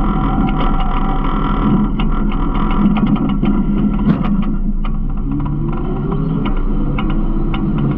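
Garbage truck engine and hydraulics running steadily, with frequent clicks and knocks of rattling gear and debris; about five seconds in the pitch rises as the engine revs up.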